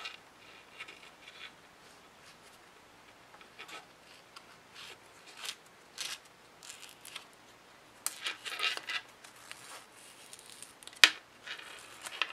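Small handling noises of a wristwatch and its nylon strap being worked with a thin metal tool: scratchy rubbing of the strap and light clicks, with one sharp click near the end.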